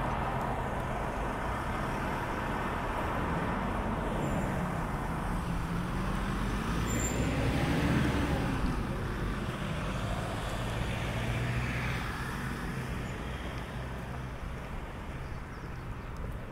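Road traffic: a motor vehicle drives past, growing louder to a peak about halfway through and fading after, over a steady low hum.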